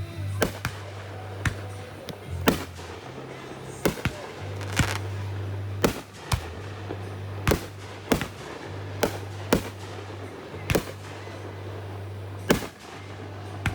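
Fireworks going off: about fifteen sharp bangs, spaced irregularly from a fraction of a second to nearly two seconds apart.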